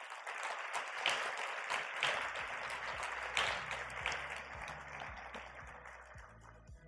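Audience applauding, thinning out and dying away near the end. Background music with a steady beat comes in underneath during the second half.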